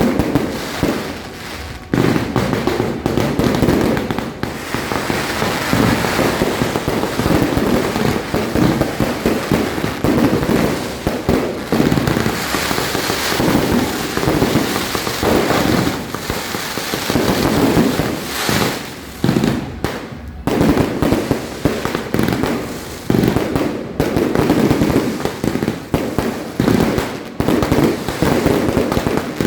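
Fireworks going off in a dense, continuous barrage of rapid cracks and bangs, with a couple of brief lulls about two-thirds of the way through.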